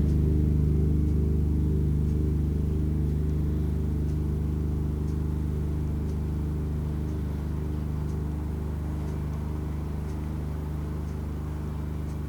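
Synthesized drone made by turning the points of a nested-circle curve into stereo sound through mid/side equations. A steady low hum, with a cluster of higher tones that slide past one another in crossing, repeating patterns, slowly fading.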